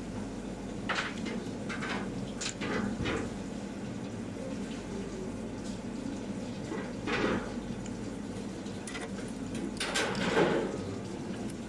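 Restaurant kitchen working noise: a steady hum under scattered clinks and knocks, with a few short hissing bursts, the loudest about ten seconds in.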